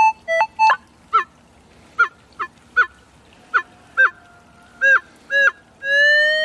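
Minelab CTX 3030 metal detector sounding a run of short target beeps that bend in pitch as the coil sweeps back and forth over a buried target, which the detectorist takes for a coin. Near the end it gives one longer, steady tone.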